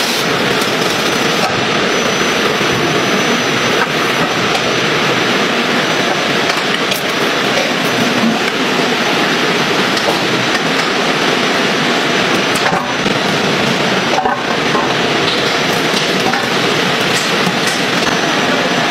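Food-factory processing line running: a steady, dense mechanical clatter from conveyors carrying metal trays of rice.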